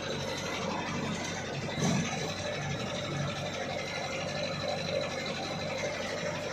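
Diesel engine of a 1993 Isuzu Bison light truck running steadily, heard from inside the cab while driving slowly under a three-tonne load, with road and cab noise. A brief thump about two seconds in.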